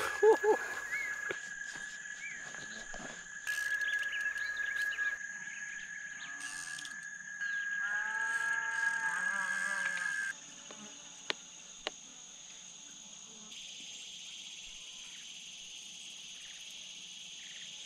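Outdoor chorus of insects droning steadily at a high pitch, with frogs calling in short repeated calls. About ten seconds in the sound drops abruptly to a quieter, steady insect drone, with two sharp clicks shortly after.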